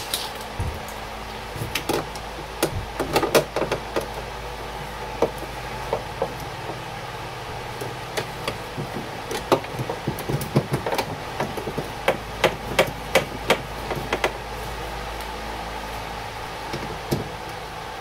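Irregular clicks and light knocks of a ratchet and hand tools against a car door's sheet-metal inner panel as the door handle's fasteners are snugged, with a quicker run of clicks about midway through.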